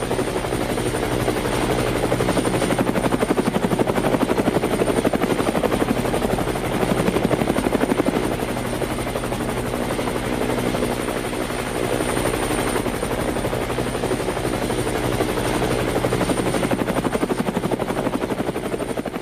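Helicopter sound effect: a steady, rapid rotor chop with a high, even whine, fading out near the end.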